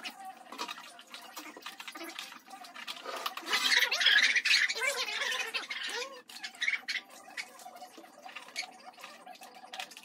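Hand-plucking wet, scalded chicken: feathers torn from the skin with short scratching, rubbing and dripping sounds over a plastic basin. A louder stretch of mixed noise with a few short pitched sounds runs from about three and a half to six seconds in.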